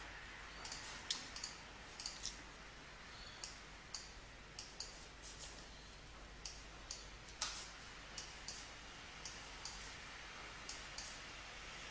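Computer mouse clicking irregularly, about two clicks a second, over a faint steady hiss.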